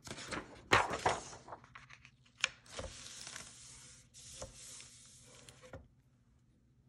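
Hands laying a sheet of paper onto a wet sheet in a parchment-lined pan and rubbing it flat: paper and parchment rustling with a few sharp crinkles, then a steady rubbing swish that stops near the end.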